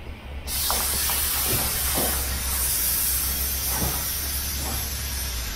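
Compressed air hissing out of an off-road tire on a beadlock wheel as it is deflated, starting suddenly about half a second in and slowly easing, with a few light knocks over it.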